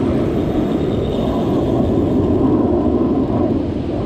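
Steady, loud rumbling wash of ocean surf in the shallows, heard through a body-worn camera's microphone.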